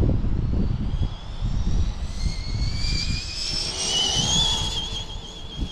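Arrma Typhon TLR electric RC buggy accelerating hard: its brushless motor's whine rises steadily in pitch from about a second and a half in, then holds a wavering high tone near the end, over a low rumble.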